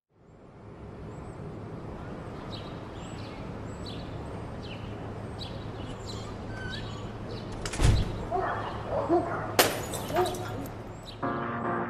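Outdoor ambience fading in with birds chirping, slowed and reverberant as part of the track's intro; about eight seconds in a heavy crash, and shortly after a sharp smashing sound. The song's music begins near the end.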